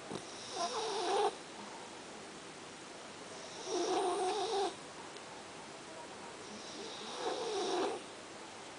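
French bulldog snoring: three rasping snores, each about a second long and spaced about three and a half seconds apart.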